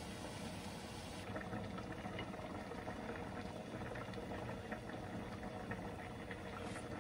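Pot of kimchi stew bubbling on the stove: a steady simmer with small scattered pops.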